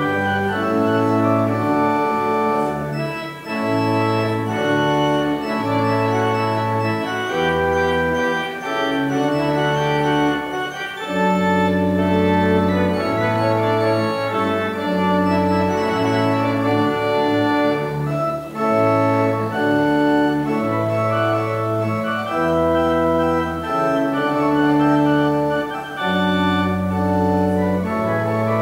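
Organ playing slow, held chords over a bass line that changes every second or two.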